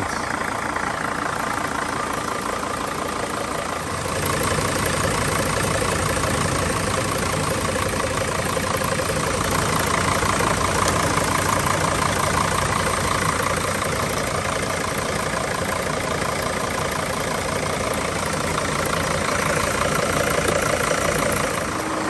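Mercedes T1N Sprinter diesel engine idling with the air conditioning compressor engaged, heard with the hood open. About four seconds in, the electric auxiliary radiator fan switches on and adds a steady, louder rushing noise over the idle.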